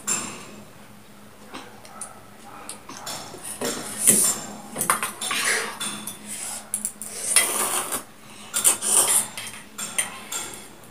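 A metal fork clinking and scraping against a stainless steel bowl of noodles, in irregular clicks, with noisy slurps as noodles are sucked in between.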